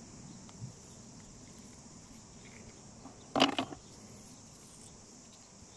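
Steady, high-pitched chirring of insects, with one short, louder noise a little past halfway.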